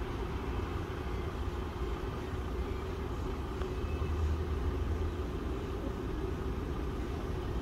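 Steady low rumble of a Boeing 737 MAX 8's CFM LEAP-1B turbofan engines on landing approach.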